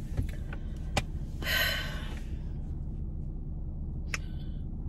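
Steady low hum of a car cabin with the engine running, with a few light clicks and a breathy exhale, like a sigh, about a second and a half in.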